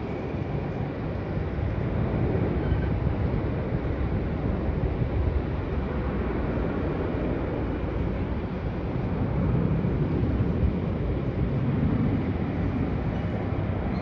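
Distant jet airliner landing: a steady low rumble of its engines, swelling slightly near the end.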